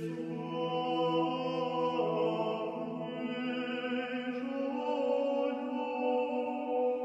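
Slow sacred choral chant, voices holding long sustained chords that move to new notes about two seconds in and again about four and a half seconds in.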